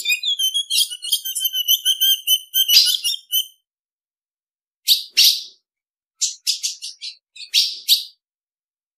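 Female ultramarine grosbeak (azulão) calling. Sharp, high chip notes come in short groups, with a quick run of notes over a thin, steady whistle in the first three seconds or so and silent gaps between the groups.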